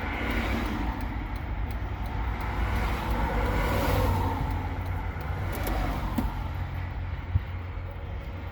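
Steady low rumble inside a car stopped at the roadside, with road traffic passing; one vehicle swells and fades about three to four seconds in. A single sharp click comes near the end.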